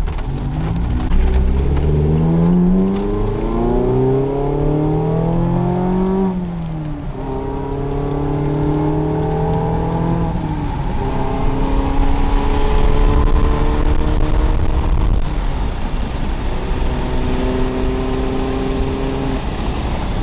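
Mazda ND Miata's four-cylinder engine breathing through Hooker headers and an HKS exhaust, revs rising steadily under acceleration for about five seconds, dropping sharply at a gear change about six seconds in, then holding steadier revs with another small step down near the middle as the car settles into a cruise.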